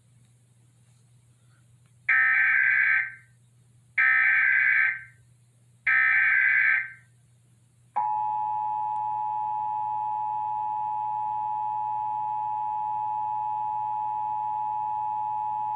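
Emergency Alert System broadcast: three one-second bursts of SAME digital header data, about two seconds apart, which encode the alert as a Required Monthly Test. Then the steady two-tone EAS attention signal sounds for about eight seconds, announcing the alert message that follows.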